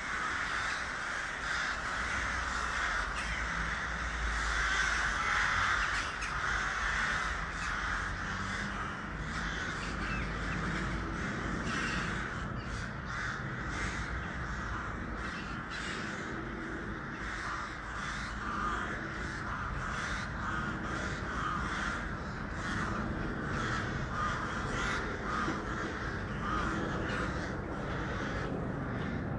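A flock of crows cawing, many harsh caws overlapping in a continuous chorus.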